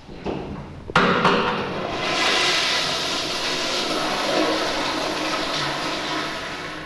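Toilet flushing: a sudden loud rush of water starts about a second in, runs for some five seconds and eases off near the end.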